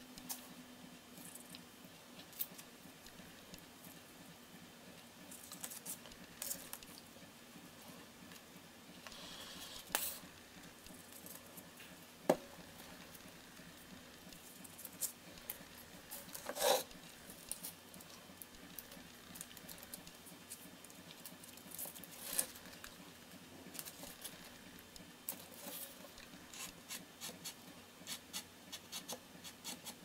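Scattered light taps, clicks and rustles of cardboard and craft pieces handled on a work table, with a few sharper knocks. The loudest knocks come about 12 and 17 seconds in.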